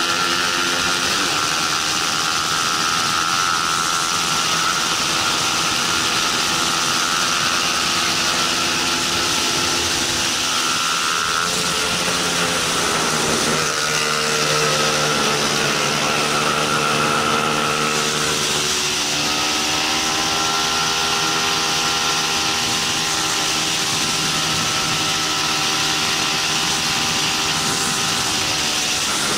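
Bajaj Pulsar 200 NS single-cylinder engine running hard on track, its pitch rising and falling with gear changes and corners. Wind rushes over the onboard microphone.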